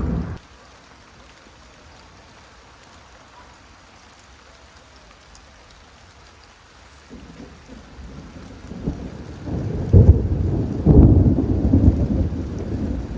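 Thunderstorm: faint steady rain hiss, then about seven seconds in a roll of thunder builds into a loud low rumble with crackling peaks, and it is still rolling at the end.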